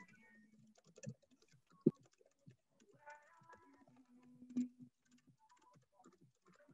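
Faint, scattered light clicks and taps in a quiet room, with one sharper click about two seconds in.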